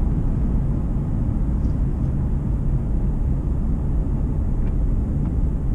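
Steady low rumble of a pickup truck driving on the road, engine and tyre noise heard from inside the cab.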